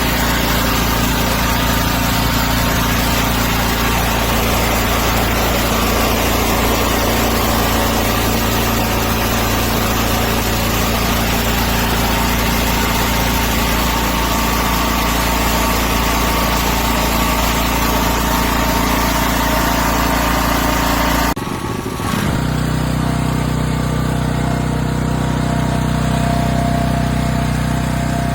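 WEN DF5600X dual-fuel portable generator's engine running steadily. About three-quarters of the way through, the sound drops for a moment, then carries on with less hiss.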